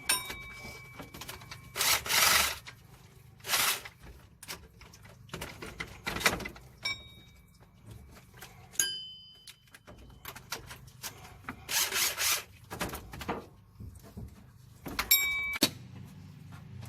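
Hand tools working on an engine bay: scattered metal clinks and knocks, a couple of ringing metallic strikes, and several short scraping or rasping bursts as parts are unbolted and pulled off.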